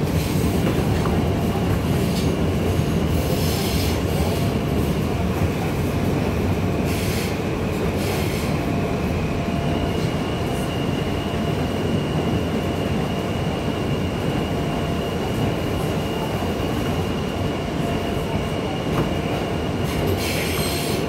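New York City Subway R160 car running through a tunnel, heard from inside the car: a steady low rumble of wheels on rail. A steady high squeal sets in about halfway and holds until near the end, and there are a few short bursts of hiss.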